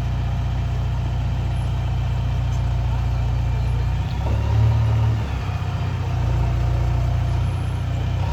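JCB 3DX backhoe loader's diesel engine running steadily at low revs, picking up briefly for about a second around the middle before settling back.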